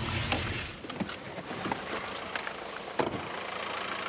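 A click as a car door opens and the car's low rumble drops away after about a second. Then come scattered footsteps and handling knocks over a steady hiss.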